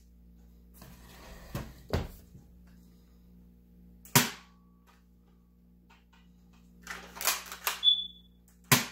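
Plastic clicks and snaps of a hand-held Nerf blaster being worked: a sharp snap about four seconds in, a quick run of clicks around seven to eight seconds, and another sharp snap near the end.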